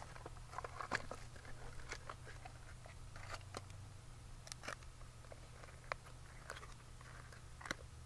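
Packaging being handled: a tape measure put back into its cardboard box among crinkling plastic bags, with scattered small clicks and crackles.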